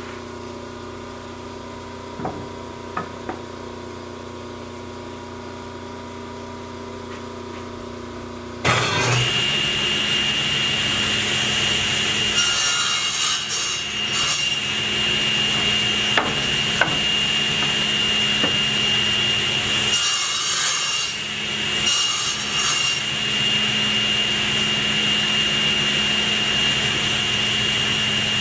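A table saw starts up suddenly about eight seconds in and runs with a steady high whine, its blade cutting into a hardwood table leg for the tenon, with two separate cuts. Before it starts there is only a low hum and a few light knocks as the wood is handled.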